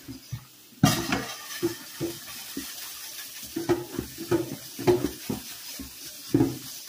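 Chainmail scrubber scraping and clinking against a stainless steel pan in quick, irregular strokes, over running tap water splashing into the pan and sink.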